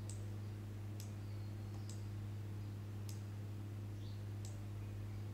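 Computer mouse clicking: five single clicks about a second apart, over a steady low electrical hum.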